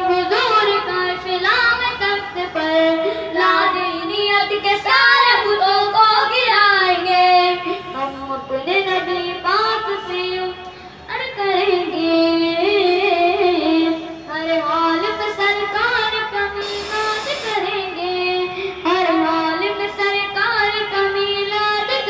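A boy singing a naat, an Urdu devotional song in praise of the Prophet, unaccompanied through a handheld karaoke microphone. He sings a winding melody with some long held notes.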